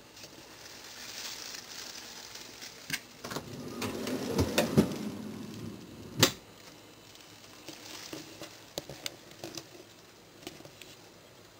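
Drawers of a Dimchae stand-type kimchi refrigerator being handled: scattered clicks and knocks, a louder rumbling slide about four to five seconds in, and one sharp knock a little after six seconds.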